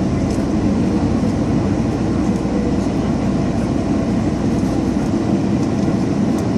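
Jet airliner heard from inside the cabin during takeoff: engines running loud and steady over a deep rumble, which drops away about five seconds in.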